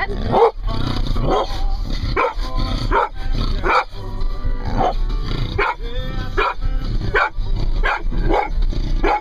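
Dog whining and barking in excitement, a string of short pitched yelps about one every three-quarters of a second, as she sees her owner come home.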